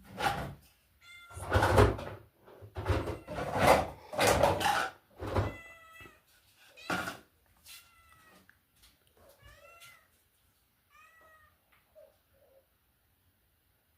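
A cat meowing repeatedly in short calls, fading to a few faint ones near the end. Several loud clattering noises come in the first few seconds.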